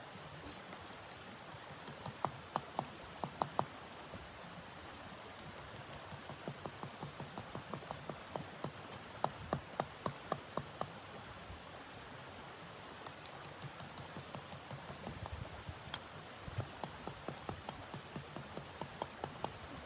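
Runs of quick, sharp clicks or taps, several a second, coming in groups over a steady faint hiss.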